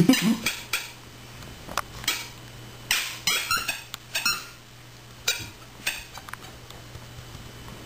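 Puppy chewing and gnawing a plush toy bear in its wire crate: irregular short, scratchy bursts in clusters, ending about two seconds before the end.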